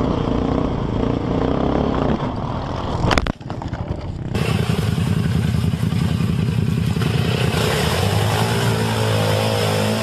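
ATV engine running hard with wind rushing past, broken by a sharp knock about three seconds in. A second ATV engine then revs as the quad churns through a muddy creek with water spraying, its pitch wavering and climbing over the last couple of seconds.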